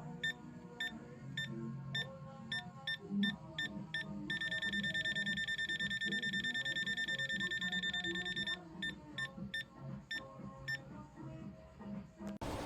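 Digital multimeter's non-contact voltage detector beeping: a few beeps a second, speeding up about four seconds in into rapid, near-continuous beeping for about four seconds, then slowing again. The faster beeping signals a stronger live AC field near the probe tip.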